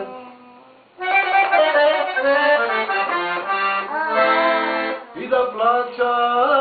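Accordion playing an instrumental folk-song passage, a melody over sustained chords. It comes in about a second in after a short lull, with a brief dip about five seconds in.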